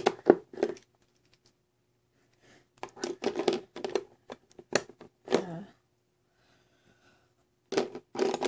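Lego wheel arch pieces being pressed onto a plastic Lego car chassis: quick clicks and taps of plastic on plastic, in four short clusters with quiet gaps between.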